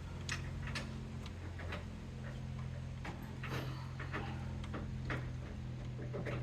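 Light, irregular clicks about two a second from hand-tool work, over a steady low hum.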